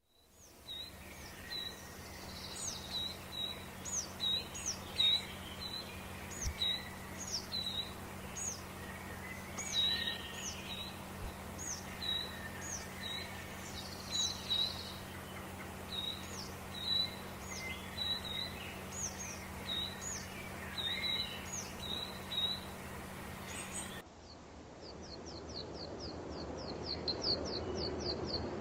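Small birds calling outdoors in winter: short, high, upward-sweeping notes repeated over and over, with a steady low hum beneath. About 24 seconds in the recording cuts to another one, where quick runs of rapid high notes follow one another.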